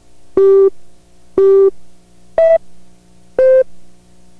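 Countdown beeps on a TV commercial slate: four short electronic tones, one a second, the first two at the same pitch, the third higher and the fourth between them, over a faint steady hum.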